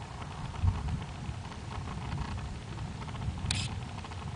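Wind buffeting an outdoor microphone in gusts ahead of a thunderstorm, an uneven low rumble with a light hiss over it. A short sharp rustle comes about three and a half seconds in.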